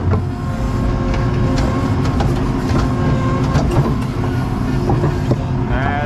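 ASV RT-40 compact track loader's diesel engine running steadily under load, with a few scattered knocks as broken concrete slabs shift in its bucket.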